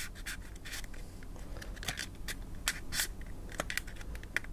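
Plastic body shell of a Kato N gauge 0 Series Shinkansen motor car being pried loose with a thin card: a scattered series of small clicks and scrapes as the shell flexes off its locking pins.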